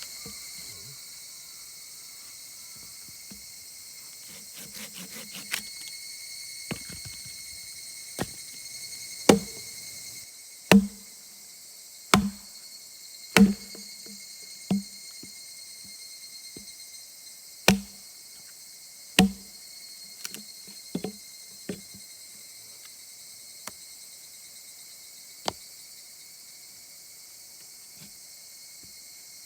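Insects, crickets among them, chirring steadily, with a series of sharp knocks: about seven loud ones a second or so apart in the middle, and fainter ones before and after.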